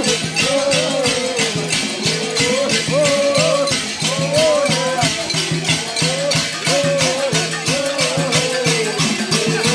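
Traditional group chant with a single wavering melody line, carried over a fast, even percussive beat of about five strokes a second.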